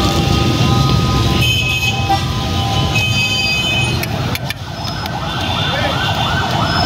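Street traffic rumble with an emergency-vehicle siren. The siren holds steady tones at first, then about five seconds in switches to a fast, repeating up-and-down yelp.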